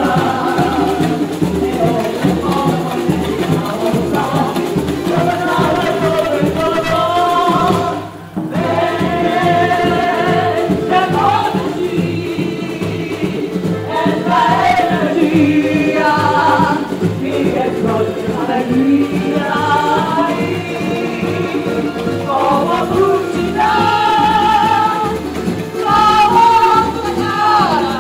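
Samba music: singing over a steady, even drum beat. It breaks off briefly about eight seconds in.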